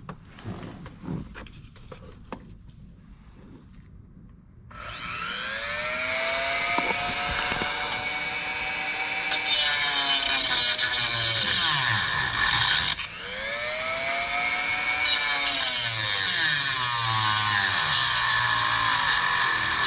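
A Dremel rotary tool whines at high speed, starting about five seconds in, cutting a screwdriver notch into a stuck bolt head. Its pitch sags and recovers as the bit bites under load. It stops briefly about two-thirds of the way through, then starts again.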